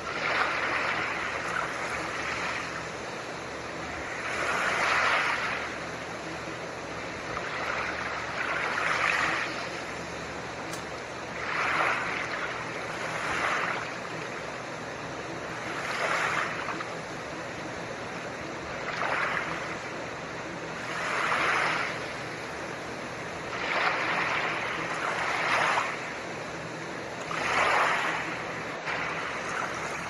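Soft ocean waves washing in, each swell rising and falling every three to four seconds, over a steady hiss of blue noise.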